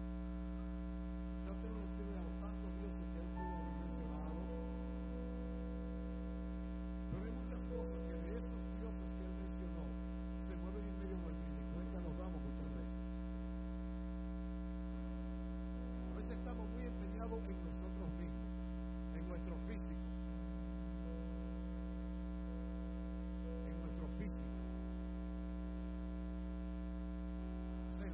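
Steady electrical mains hum in the audio feed: a constant low buzz with a stack of many evenly spaced overtones. Faint, indistinct voice-like sounds come and go beneath it.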